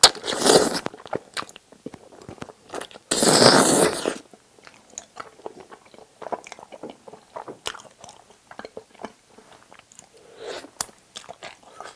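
Close-miked eating of wide Chinese glass noodles and braised spicy chicken: two loud slurps from the bowl, one right at the start and a longer one about three seconds in, then steady wet chewing with many small soft clicks.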